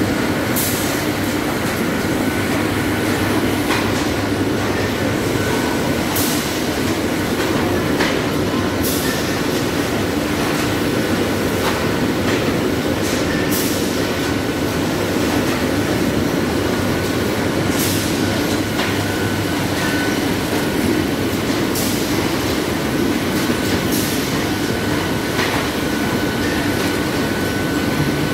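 A GHD Hartmann Automat PP 30 pillow packaging machine running, with its plastic mesh infeed belts: a steady mechanical noise with a thin high whine, broken by sharp clacks at uneven intervals every few seconds.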